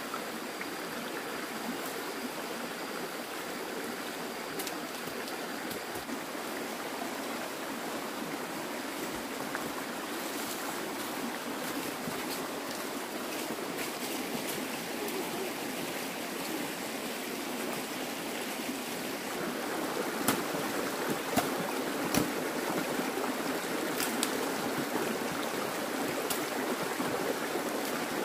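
Stream water flowing steadily, a continuous rush that gets a little louder about two-thirds of the way in, with a few light knocks around then.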